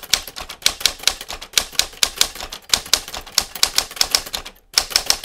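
Typewriter keystroke sound effect: a rapid run of sharp clacks, about six a second, for a caption typing out letter by letter. There is a brief pause a little before the end, then the clacking resumes.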